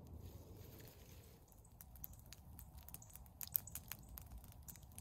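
Campfire crackling with scattered small pops and one louder pop about three and a half seconds in, after a low rumble in the first second and a half.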